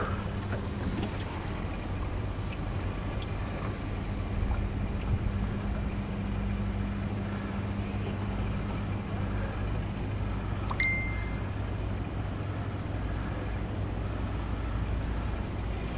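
Small boat outboard motor running steadily, a low even hum. A short high beep sounds once about eleven seconds in.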